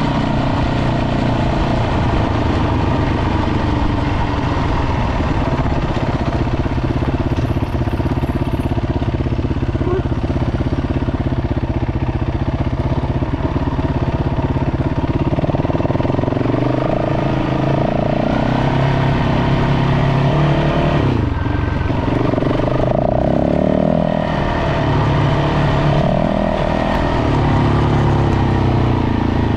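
Dirt bike engine running while riding, steady at first, then rising and falling in pitch with the throttle from about halfway through.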